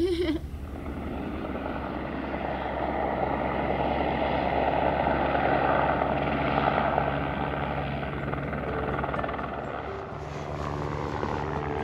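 Helicopter flying past, its rotor beating steadily; it grows louder toward the middle and then eases off.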